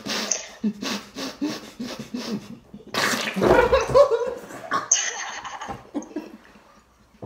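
A man trying to hold in laughter behind his hand, spluttering in short wet bursts, with a louder wet splutter about three seconds in. The sound fits spraying out a mouthful of water.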